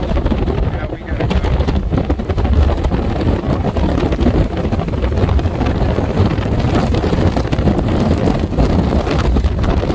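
Strong wind buffeting the microphone: a steady, heavy rumbling noise that dips briefly about a second in.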